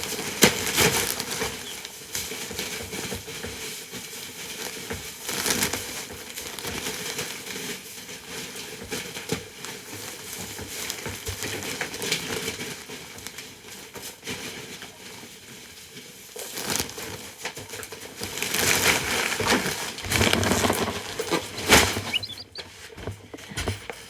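Animal bedding being handled and spread by hand, with irregular crinkling and rustling that swells louder several times.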